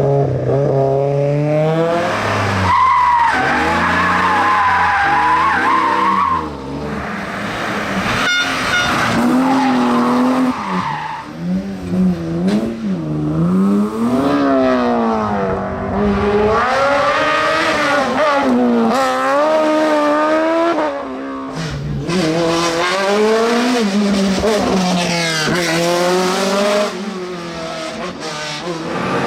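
Hillclimb race car engine revving hard, its pitch climbing and dropping again and again as it accelerates, shifts gear and brakes for corners.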